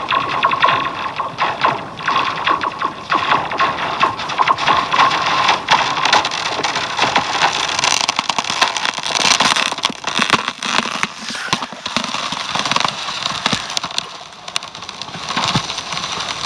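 Thin pond ice, about 1 1/4 inch thick, giving off a dense run of sharp clicks, pings and crackles, with a faint steady tone for the first few seconds.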